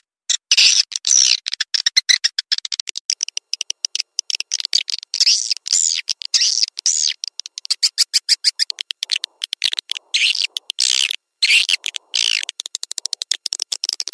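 Swiftlet calling-sound recording of the kind played to lure edible-nest swiftlets: fast trains of short, high chirps and twitters, many per second, broken by a few brief pauses.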